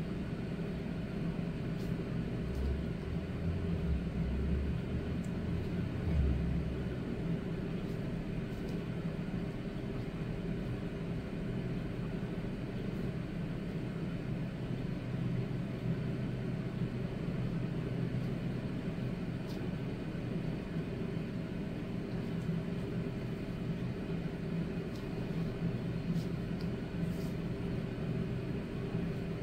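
Steady humming drone of a running motor, holding several fixed tones, with a few faint low bumps from about three to six seconds in.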